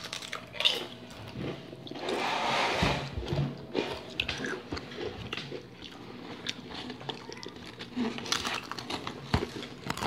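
Pringles cheese potato crisps being bitten and chewed close to the microphone, a run of crisp crunches and crackles, with a louder stretch of crunching about two seconds in.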